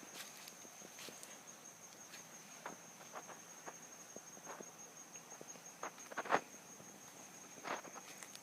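Footsteps crackling through twigs, roots and brush on a woodland floor, in scattered short snaps with a louder crunch about six seconds in. Behind them runs a steady, high insect trill.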